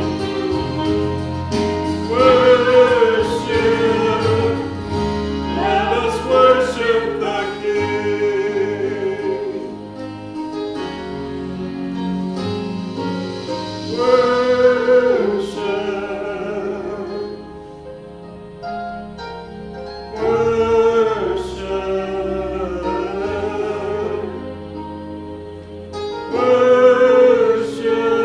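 A woman and a man singing a sacred song as a duet over a sustained instrumental accompaniment, their phrases swelling and falling back several times.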